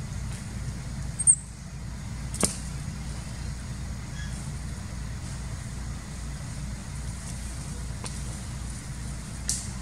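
Steady low rumble with a very short, high chirp about a second in, and two sharp clicks, one a second later and one near the end.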